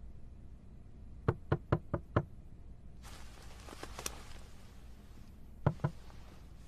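Knocking: five quick knocks about a second in, then two more close together near the end.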